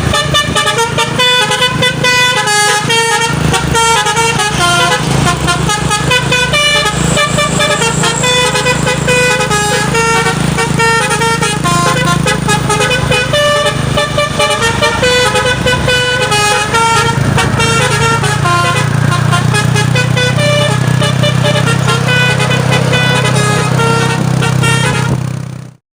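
Telolet basuri multi-tone truck horn playing a quick melody of stepped, overlapping notes, with the truck's engine running underneath. It cuts off near the end.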